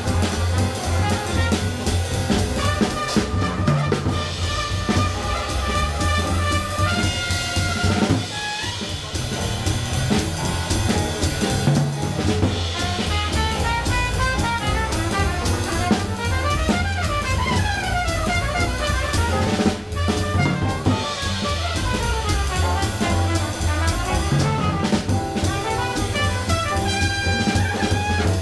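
Small jazz combo playing live: trumpet leading with quick runs up and down, over double bass, piano and a drum kit played with sticks, cymbals ringing throughout.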